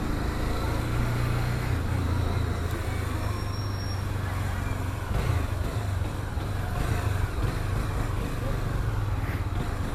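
Honda CB300 motorcycle's single-cylinder engine running at low speed in slow city traffic, with a steady low drone and the surrounding cars and truck heard from the rider's seat.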